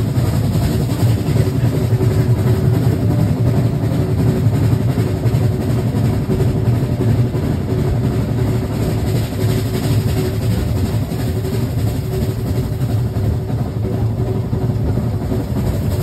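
Narrow-gauge steam train running behind Zillertal, an Austrian U-class tank locomotive, heard from a coach: a steady low rumble of wheels on the track with a regular rhythmic beat.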